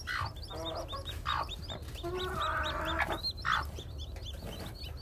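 Newly hatched chicks peeping in a rapid string of short high peeps, several a second, while the broody hen sitting on them gives a few low clucks as a hand reaches under her.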